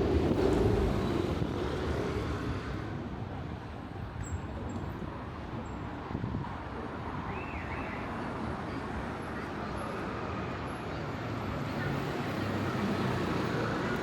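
City traffic ambience: a steady wash of road traffic. A heavy low hum from a passing vehicle fades away over the first couple of seconds.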